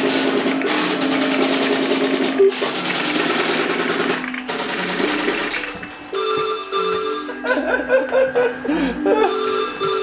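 Telephone bells on the vintage exchange's phones ringing in fast, clattering bursts for about six seconds as the test calls come through. About six seconds in, the ringing gives way to a double-pulse ringing tone on the line: two short beeps of a low tone.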